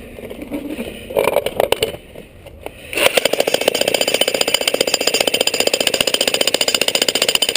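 Jackhammer breaking rock: a few scattered knocks, then about three seconds in it starts into rapid, steady hammering.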